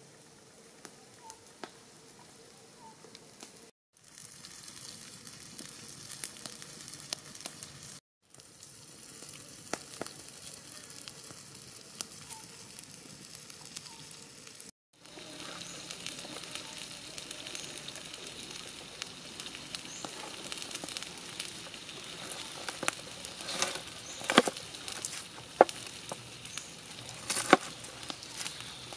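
Tire track eels sizzling on a hot griddle over a wood fire, with scattered crackles from the fire. Near the end come a few sharp knocks of a knife chopping on a wooden cutting board.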